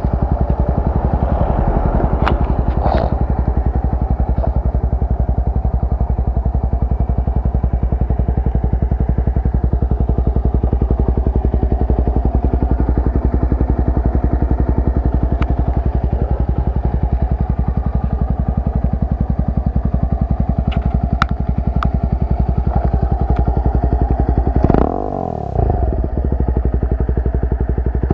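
SYM Wolf 125cc single-cylinder motorcycle engine idling steadily, with an even exhaust beat; near the end the note dips and sweeps briefly in pitch.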